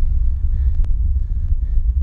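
Steady low rumble of wind buffeting the microphone of a bicycle-mounted action camera while riding, with a faint click a little under a second in.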